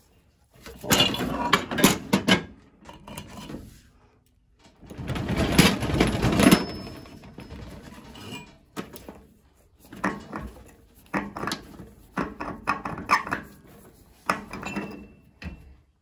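Irregular metal knocks, clatter and scraping from hand tools working a cross-threaded fitting on a steam boiler, with a longer stretch of grinding scrape about five seconds in.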